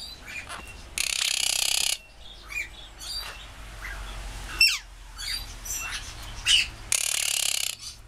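Quaker parrots (monk parakeets) calling. Two harsh squawks, each about a second long, come near the start and near the end, with short chirps and one sharp sliding call between them.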